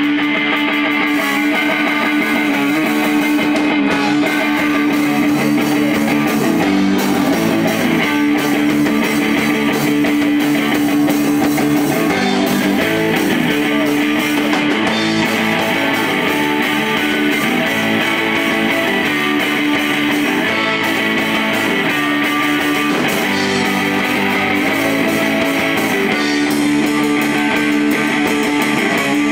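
Hardcore band playing live: loud distorted electric guitars over bass and drums, one low chord held and repeated through much of it.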